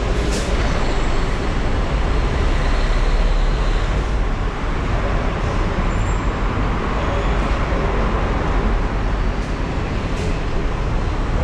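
Steady road traffic noise from cars and buses on a busy city street.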